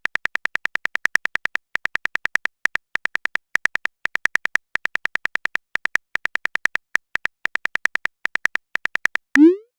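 Chat-app typing sound effect: rapid short electronic ticks, about ten a second, in runs with brief pauses as each message is typed out. Near the end, a short rising swoop, the message-sent sound.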